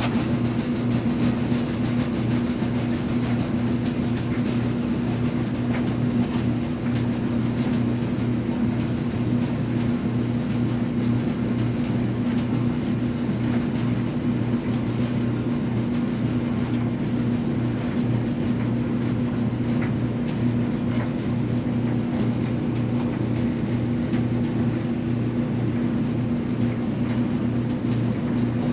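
Clothes dryer running steadily with a low hum and faint scattered ticks and taps over it.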